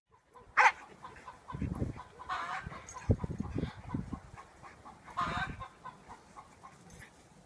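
Short animal cries: one about half a second in, another around two and a half seconds, and a third around five seconds, with low thumps in between.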